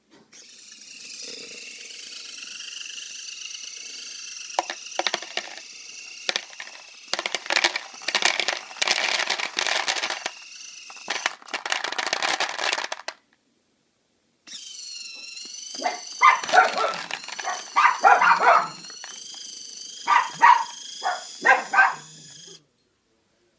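Homemade automatic dog food dispenser running, with a steady high motor whine and dry kibble clattering into a plastic bowl in bursts. The sound stops for about a second and a half midway, then starts again.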